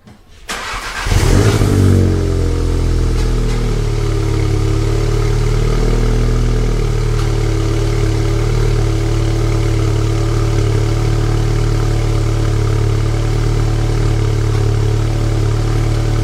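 Volkswagen Golf R Mk7.5's turbocharged inline four-cylinder engine starting: a short crank, a flare in revs about a second in, then settling into a steady idle.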